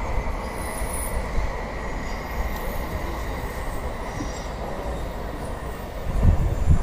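N700-series Shinkansen bullet train passing at a distance: a steady rushing rumble with a faint high whine, and a louder low rumble about six seconds in.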